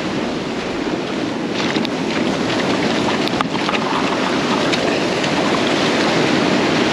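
Ocean surf breaking and washing up a sandy beach, with wind buffeting the microphone; the wash builds steadily louder.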